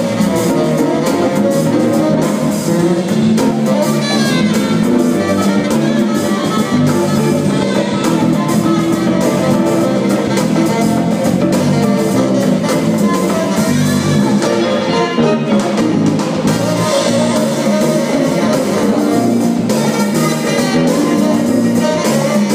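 Live jazz-funk band playing: electric guitar and electric bass over a drum kit and congas, with keyboards and horns on stage.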